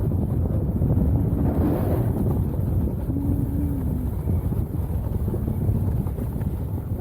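Steady low rumble of wind buffeting the microphone, with a few faint short low hums in the background.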